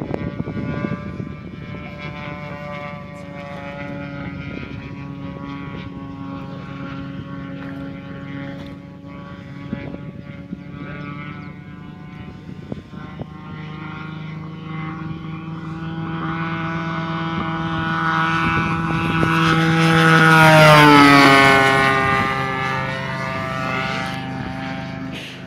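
Radio-controlled Hangar 9 Spitfire scale model's engine running steadily in flight. The note grows louder toward a pass about twenty seconds in, drops in pitch as the plane goes by, then fades.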